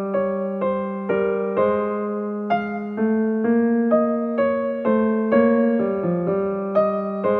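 Gentle background piano music: single notes struck about twice a second in a slow melody, each fading away, over a held low note.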